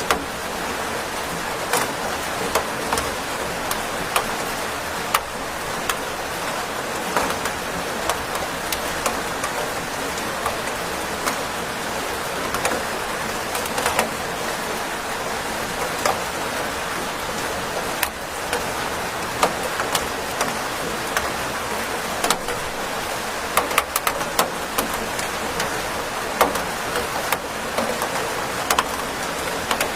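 Steady rain: a dense even hiss with frequent sharp taps of single drops landing close by.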